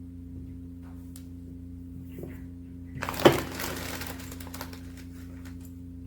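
Steady low electrical hum from equipment on a soldering bench. About three seconds in there is a sharp click inside a short burst of hiss, from work at the soldering iron.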